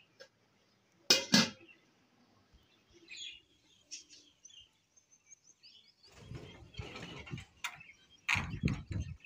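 Small caged birds, budgerigars by the look of them, chirping in short high notes. Two loud knocks come about a second in, and clattering and knocks from the metal cage being handled come near the end.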